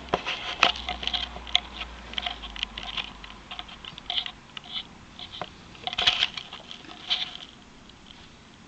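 African grey parrot making an irregular series of sharp clicks and short chirps, densest in the first second and again about six seconds in.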